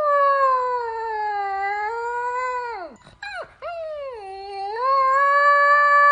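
A dog howling: a long, wavering howl that drops away about three seconds in, a couple of short yelps, then a second long howl that rises and holds.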